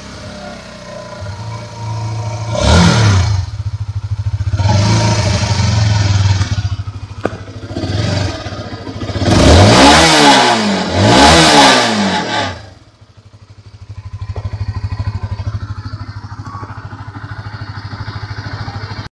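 Honda CBR150R's single-cylinder engine idling and being revved in a series of throttle blips, the two biggest about ten and eleven seconds in, then settling back to a steady idle.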